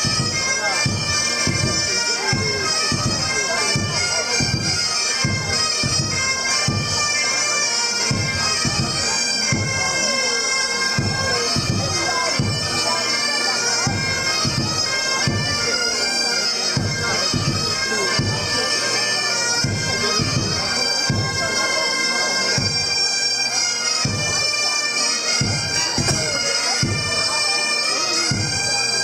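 Breton bagad playing a tune. The bagpipes sound a steady drone under the chanter melody, with bombardes and a steady drum beat of about two strokes a second.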